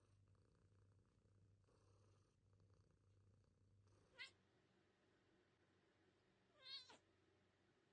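A domestic cat purring faintly, in slow pulses with each breath, while it is scratched under the chin. After about four seconds the purring stops, and two short high cat calls follow: a quick chirp and then, near the end, a wavering falling meow.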